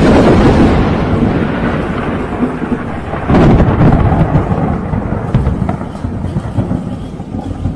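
Thunder: a loud clap right at the start rolls into a long rumble, then a second loud peal about three seconds in rumbles on and slowly fades.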